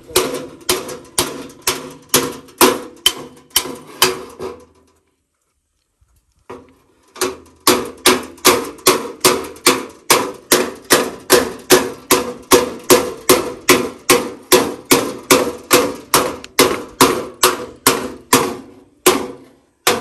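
Hammer blows on the steel sheet metal of a Power King garden tractor's body, worked against a dolly to straighten dents. It is a steady run of sharp, ringing metal strikes, about two to three a second, with a break of about a second and a half around five seconds in.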